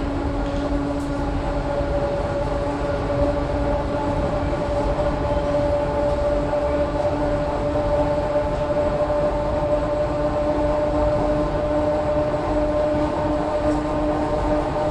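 ER2 electric multiple unit heard from inside the carriage while running at speed: a steady rumble with an even two-tone hum held throughout.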